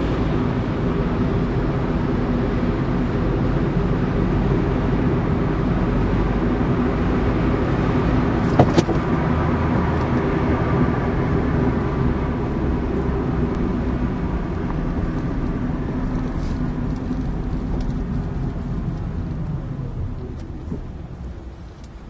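Car road and engine noise heard from inside the cabin while driving, a steady rumble with a couple of sharp knocks about eight and a half seconds in. The noise dies down over the last few seconds as the car slows to a stop.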